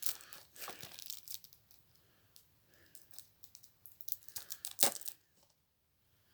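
Blu-ray case and its packaging being handled: light crinkling and scattered small clicks, with one sharper click just before five seconds in.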